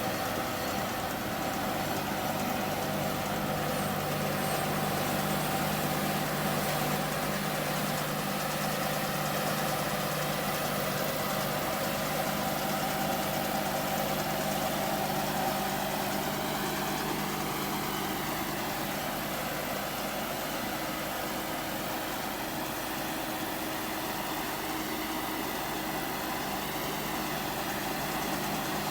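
Massey Ferguson MF5610 tractor engine running at a steady speed with the 2946 round baler in tow. A faint whine rises and falls in pitch around the middle and again near the end.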